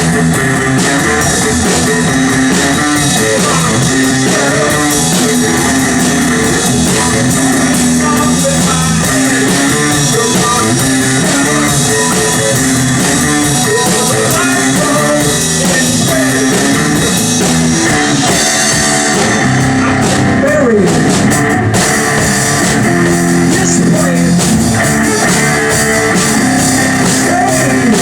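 Rock band playing a song with guitar and drum kit, loud and continuous.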